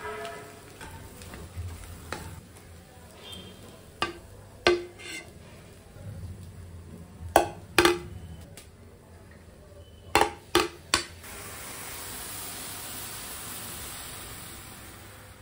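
A metal spoon scraping and stirring scrambled egg in a non-stick frying pan, with a series of sharp knocks of the spoon against the pan as the egg is served, loudest around the middle. After that comes a steady hiss that swells and then fades: milk in a steel saucepan coming to the boil and foaming up on the gas burner.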